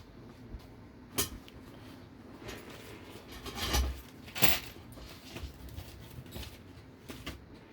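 Small metal hardware clinking and clicking as it is handled and set down on a workbench: a few separate sharp knocks, the loudest about four and a half seconds in.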